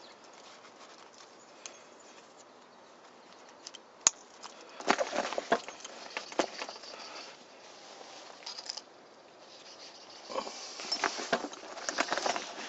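A camouflage fabric backpack being handled: a sharp click about four seconds in, then bursts of rustling and crackling from the fabric and its pockets, again near the end.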